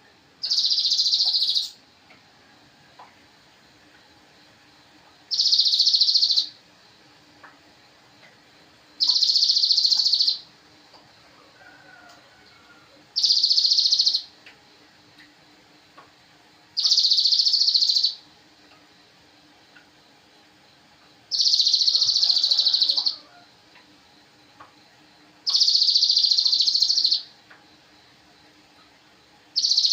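Sogon bird call: a high-pitched burst of chatter about one to two seconds long, repeated at regular intervals about every four seconds, as in a looped masteran training recording.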